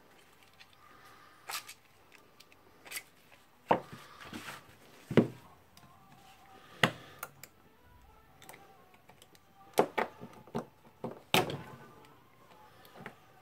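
Screwdriver and metal parts clicking and knocking as a stubborn retaining ring is pried out of a Makita HR2470 rotary hammer's barrel: a dozen or so short, sharp clicks at irregular intervals, several close together near the end.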